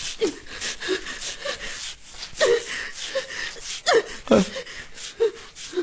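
A person's voice making short wordless sounds, about one a second, some sliding up or down in pitch.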